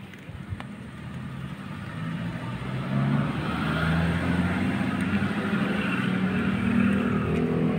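A motor vehicle's engine running close by, getting louder from about two seconds in and then holding steady.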